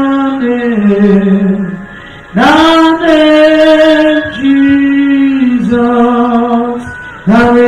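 A woman singing a slow, chant-like worship melody into a handheld microphone, holding long notes; one phrase dies away and a new one starts about two seconds in, and another begins near the end.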